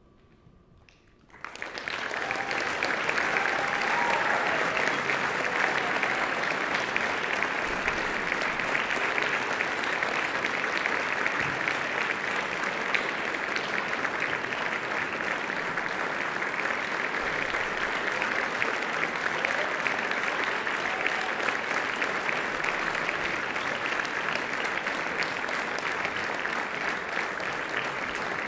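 Audience applauding in a hall: after a brief hush, applause breaks out about a second and a half in and carries on steadily.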